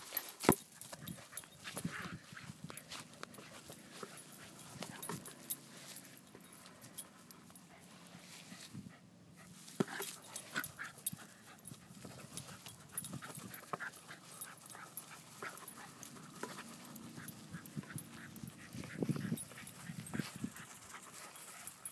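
A dog panting as it plays with a basketball, with scattered taps, knocks and rustles throughout; a sharp knock about half a second in is the loudest.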